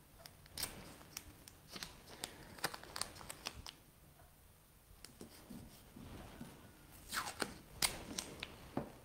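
Blue painter's tape being handled on a plastic stencil: faint crackles and clicks as strips are pressed down, then a few louder rips near the end as tape is pulled off the roll.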